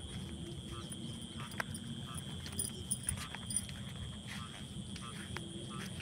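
Frogs in a flooded rice paddy giving short croaks, repeated about every half second to second, over a steady high insect drone, with a low wind rumble on the microphone.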